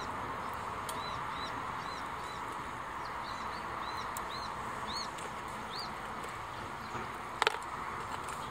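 A small bird chirping repeatedly in short, arched notes over a steady hiss, with one sharp snap near the end.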